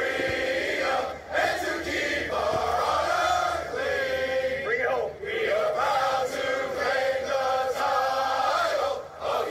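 A large group of Marines singing together in unison, held notes broken by short pauses for breath.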